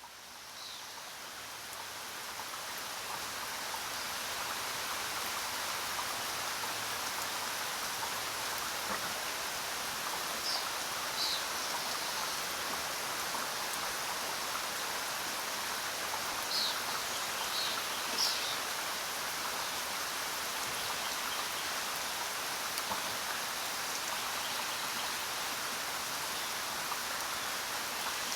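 Steady rainfall in a jungle, fading in over the first few seconds. A few short, high chirps, typical of birds, come through the rain around the middle.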